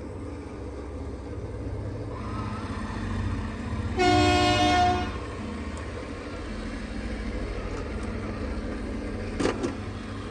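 A vehicle horn toots once for about a second over a steady low engine rumble, with a short knock near the end.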